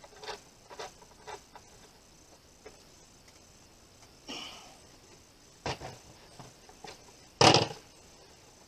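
Hand-tool work on a solar charge controller: light clicks and ticks of a screwdriver turning terminal screws and of wires being handled, a short scrape about four seconds in, and one louder knock near the end.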